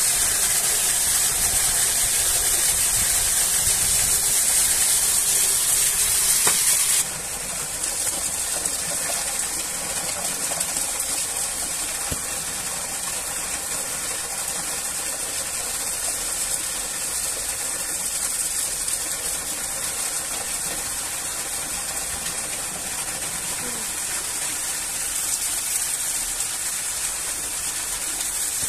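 Steady rush of water from a waterfall, an even hiss strongest in the highs. About seven seconds in it drops abruptly to a softer level, then runs on steadily.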